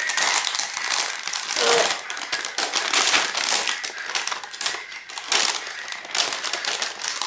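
Thin plastic mailer wrap crinkling and rustling as hands grip and pull at it, an uneven run of crackles throughout.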